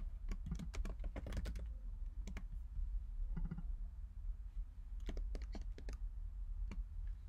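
Quiet computer keyboard key presses and clicks, coming in a few short clusters of taps with pauses between.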